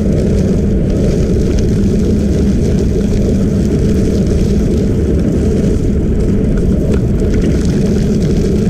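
Steady low wind rumble on the microphone of a camera moving along a gravel trail at about 15 mph, with faint crackle from tyres rolling on the gravel.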